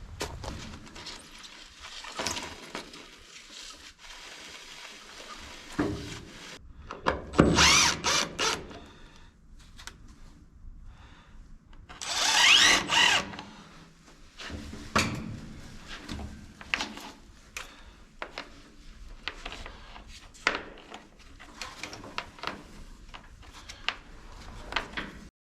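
A power drill run in two short bursts, its motor rising in pitch as it spins up, with scattered clicks and knocks of tool handling between.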